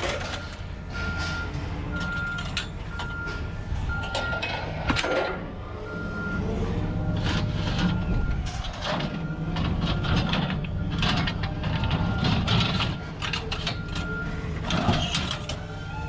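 A vehicle's reversing alarm beeping about once a second over a low engine rumble, stopping about halfway and starting again near the end, with scattered metal knocks and clatter from scrap being handled.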